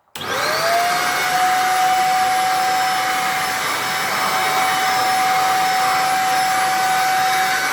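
Cecotec Conga Duostick Easy 800-watt bagless stick vacuum cleaner switched on: its motor spins up with a quickly rising whine, then runs steadily at one high pitch over the rush of suction air. A little bit noisy.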